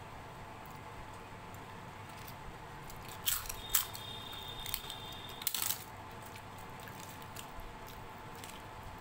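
Crisp fried papad bitten and crunched: a cluster of sharp crunches a little over three seconds in and another just after the middle, with faint soft eating clicks around them.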